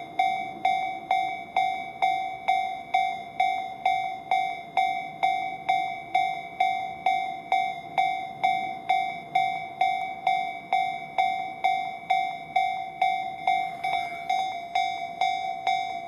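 Japanese railway level-crossing warning bell ringing in a steady, even rhythm of about two clanging strikes a second, each strike decaying quickly. It is the signal that a train is approaching and the crossing is closed.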